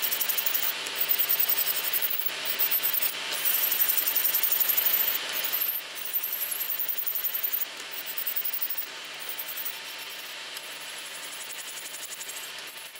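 Bandi electric nail drill with a gel-removal bit grinding gel off a nail extension: a gritty, rapidly fluttering grinding over a faint motor hum, louder and uneven as the bit is worked across the nail for the first half, then quieter and steadier.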